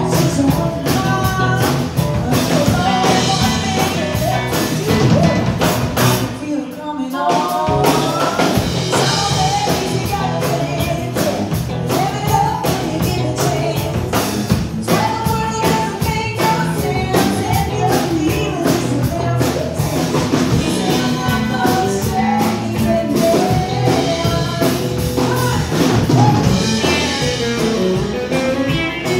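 A woman singing into a handheld microphone over loud amplified music. The music drops out for a moment about seven seconds in, then comes back in.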